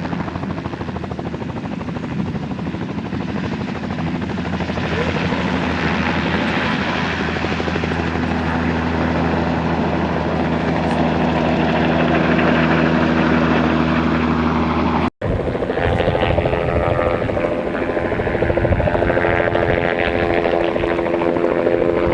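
Helicopter flying low overhead: a steady rotor and engine drone with a pitched hum. After a brief cut about fifteen seconds in, the drone resumes with its pitch shifting as the helicopter moves.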